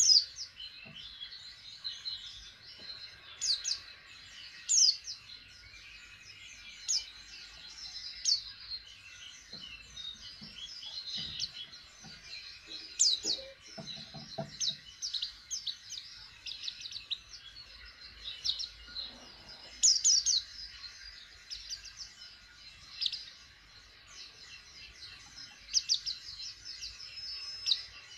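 White-eye (pleci) in a cage twittering: a stream of short, high chirps and sharp tweets, some much louder than the rest, over a faint steady high twitter. It is a young bird just beginning to sing.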